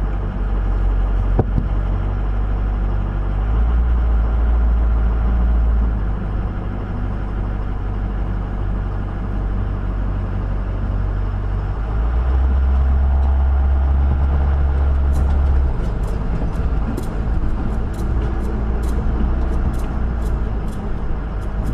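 Truck engine and tyre noise heard from inside the cab while driving a sandy dirt road, the low rumble growing louder twice, about four and twelve seconds in. In the last several seconds a scattering of sharp clicks and rattles rides over it.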